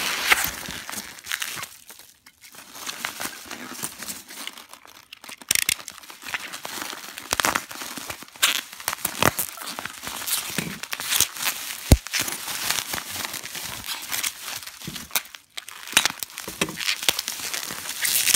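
Foam packing peanuts rustling and squeaking and bubble wrap crinkling as hands dig into a box and lift out a bubble-wrapped bottle, in irregular crackling bursts with a few short pauses. One sharp knock about two-thirds of the way through.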